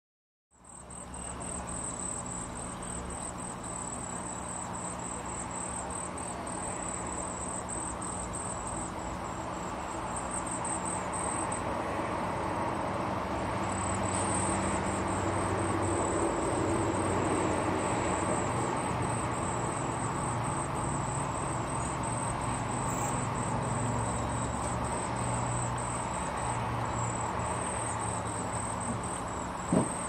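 Steady, high-pitched chirring of insects, with a low steady hum underneath and a single sharp click near the end.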